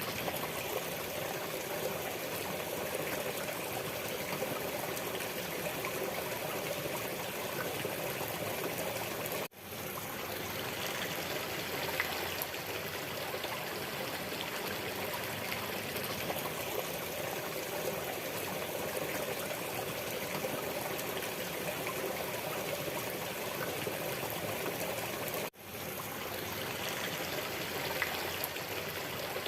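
Waterfall running in a steady, even rush of falling water. It cuts out for an instant twice, about ten seconds in and again about twenty-five seconds in, then resumes.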